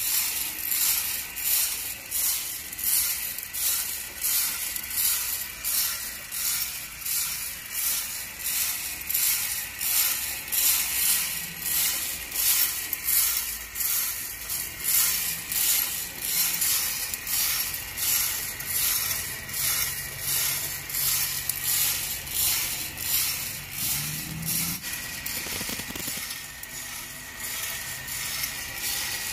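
Green coffee beans tumbling and rattling in the turning drum of a KAKA G400 coffee roaster, a rhythmic rush of beans about three times every two seconds, over a faint steady high tone.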